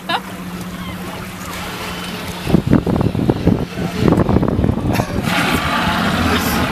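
Outboard motors of a small boat idling with a steady low hum, over water noise. About two and a half seconds in, a few seconds of loud, irregular low rumbling gusts come through on top.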